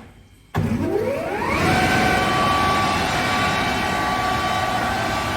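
Kaeser 15 kW rotary screw air compressor starting up: its motor cuts in suddenly about half a second in, a whine rises in pitch over about a second as it spins up, then it runs steadily with a high whine.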